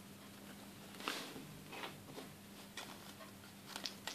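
Faint crinkling of a small clear plastic bag of toy pencils being fingered and pinched open, a few soft crackles scattered through, over a steady faint hum.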